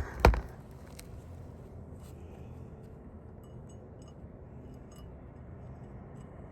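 Two sharp hammer blows on a roofing nail, about a third of a second apart, followed by low steady background noise with a few faint light clicks.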